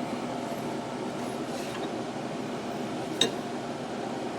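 Steady background hum with a single light metallic clink about three seconds in, as hand files are swapped during axe sharpening.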